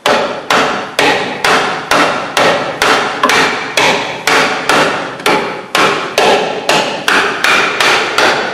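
Rubber mallet striking a rusty steel brake drum on a 1970 VW Variant, about twenty steady blows a little over two a second, each with a short metallic ring. The blows are knocking loose a seized drum whose brake shoes are thought to be stuck to it.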